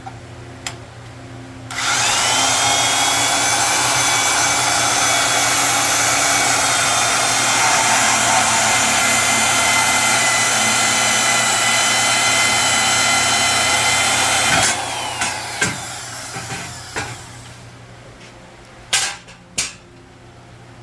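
Electric power cutting tool cutting through the steel frame of a small quad. The motor spins up with a rising whine about two seconds in, runs loud and steady for about thirteen seconds, then stops and winds down, followed by a few knocks.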